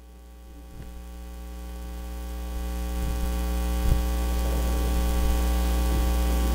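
Steady electrical mains hum, a buzzy stack of low tones, swelling louder over the first few seconds and then holding level, with a couple of faint knocks.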